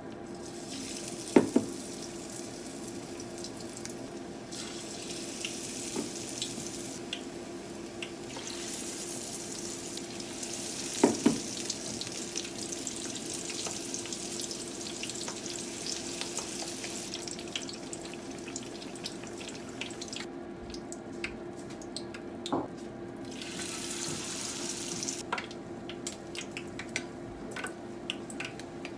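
Water running from a kitchen tap, turned off partway through and briefly on again, with three loud knocks of kitchenware.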